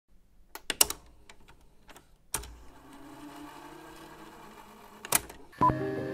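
VHS video player mechanism: a run of clicks and clunks as the tape engages, a faint steady whir as it rewinds, and another clunk about five seconds in. Music begins just before the end.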